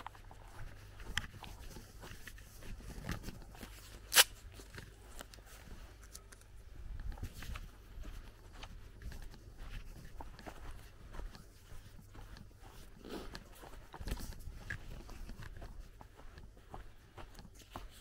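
Footsteps walking on a grassy path, with soft rustling and scattered small clicks. One sharp click about four seconds in is the loudest sound.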